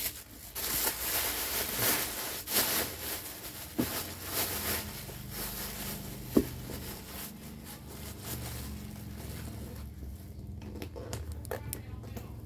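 Rustling, crinkling and clicking from a leather handbag being handled and opened, busiest in the first few seconds, with a low steady hum underneath later on and one sharp click about six seconds in.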